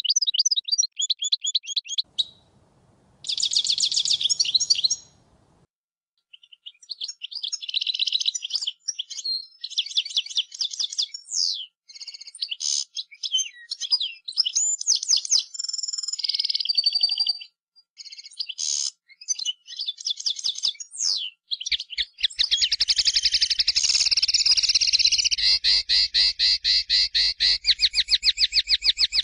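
European goldfinch of the large 'major' race singing: runs of rapid twittering trills and buzzy notes with brief pauses between phrases. For the last several seconds it becomes one long, dense, unbroken trill.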